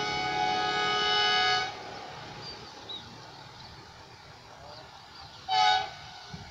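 Distant diesel locomotive's multi-tone air horn: one long blast that stops about a second and a half in, then a short toot near the end.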